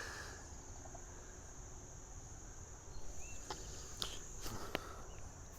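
Crickets trilling steadily in a high, continuous chorus, with a few faint clicks a few seconds in.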